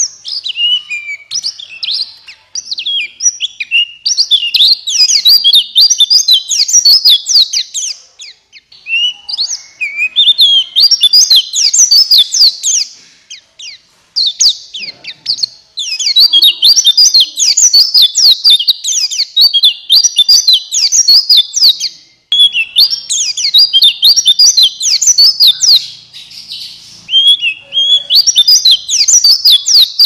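White-eye (pleci buxtoni) singing a long, fast, high-pitched twittering song in phrases several seconds long, with brief pauses between. It is the full 'gacor ngalas' song that keepers play to get quiet white-eyes singing.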